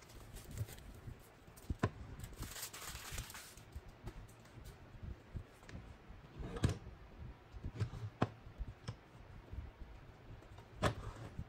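Painter's tape rustling as it is pulled off a wooden drawer box, then a few separate knocks as the drawer is tipped up and set back down on the workbench.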